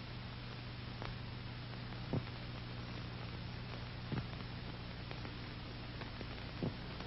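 Faint steady hiss and low hum of an old film soundtrack between narration lines, with three short pops spread through it.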